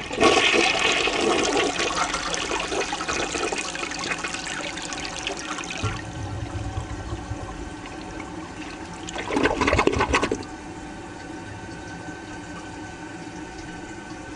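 Toilet flushing: a loud rush of water that eases off over several seconds, a brief louder surge about ten seconds in, then a quieter steady run of water.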